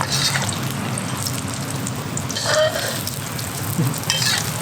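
Egg omelet frying in hot oil, a steady hissing sizzle, with a couple of brief clatters.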